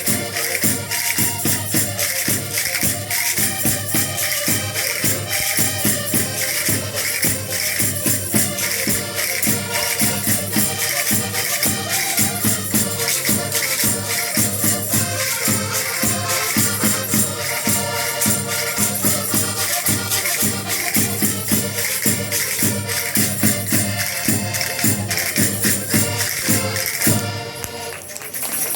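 Folk music with group singing and jingling percussion over a fast, steady beat. It stops about a second before the end.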